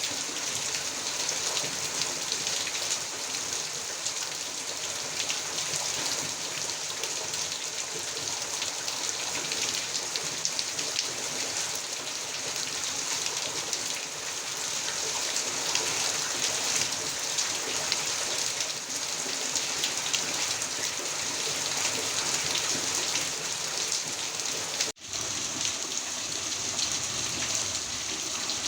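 Heavy rain pouring steadily, a dense, even hiss of drops on surfaces. It cuts out for an instant near the end, then resumes.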